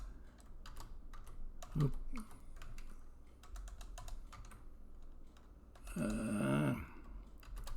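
Computer keyboard typing: scattered, irregular key clicks. A short murmured voice sound comes about six seconds in.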